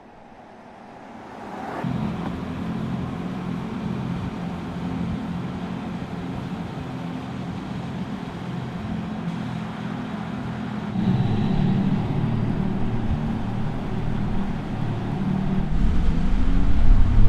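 Mercedes-AMG EQS 53 electric car driving, its artificial drive sound swelling in about two seconds in, getting louder again midway, and rising in pitch near the end as it accelerates.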